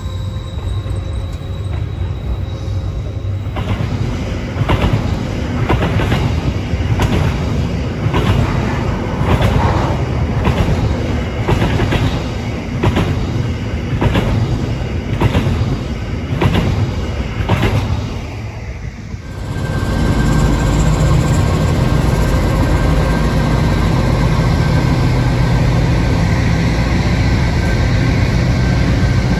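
Freight train wagons rolling past close by, a steady whine at first, then wheels clicking over rail joints about one and a half times a second. About 19 s in this gives way to the steady low hum of a diesel locomotive's engine running as it passes.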